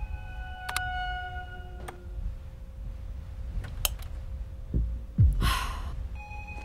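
A child's sigh, a breathy exhale about five seconds in, the loudest sound here. Before it come a few soft clicks and short steady electronic tones.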